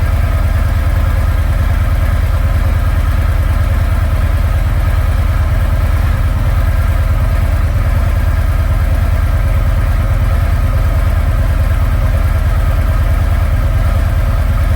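Harley-Davidson Freewheeler's V-twin engine idling steadily after a fresh oil change, with an even, regular beat.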